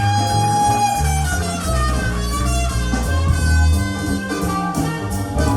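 Live jazz-blues recording played back over KEF LS50 Meta bookshelf speakers and subwoofers: a guitar solo over a strong bass line. A held high note slides down about a second in.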